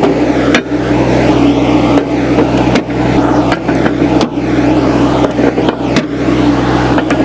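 Summit TX25 compact tractor's diesel engine idling steadily, while heavy 70-pound suitcase weights are set into its steel loader bucket one after another, each landing with a sharp clunk, about seven in all.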